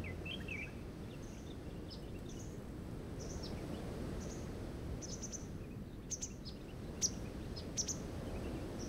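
Outdoor forest ambience: a steady low hiss with birds chirping in short bursts. A few short sharp crackles come near the end.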